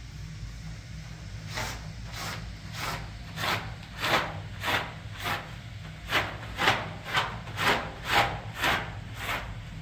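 Rhythmic rubbing strokes, about fourteen at roughly two a second, begin about a second and a half in and stop near the end, with a steady low hum underneath.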